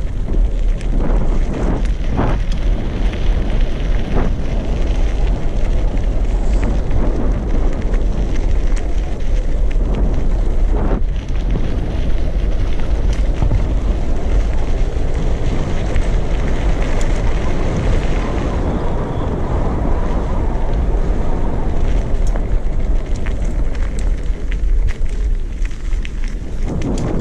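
Wind rumbling on the microphone of a camera on a moving bicycle, over a steady crackle of tyres rolling on a gravel track, with scattered rattles and ticks from the bike.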